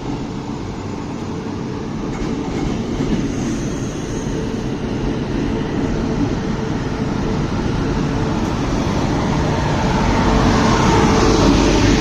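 Passenger train pulling into a station platform, its rumble growing steadily louder as it approaches, with a steady tone getting stronger near the end.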